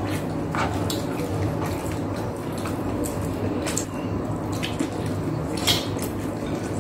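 Wet chewing and mouth sounds of people eating fried pork knuckle and peanut-sauce stew with their hands, with a few sharp clicks, over a low steady hum.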